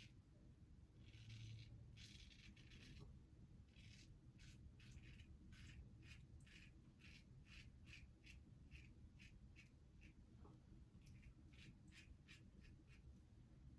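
Double-edge safety razor scraping through lathered stubble in short, faint strokes, about two or three a second, after a longer scraping stretch near the start.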